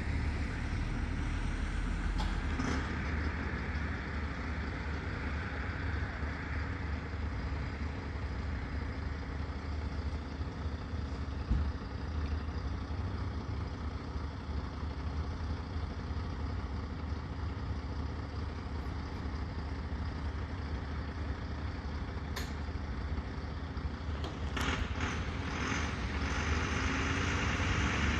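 Heavy fire engine's diesel engine idling steadily. A few sharp clicks and a short hiss come near the end, and the engine note starts to rise just before the end.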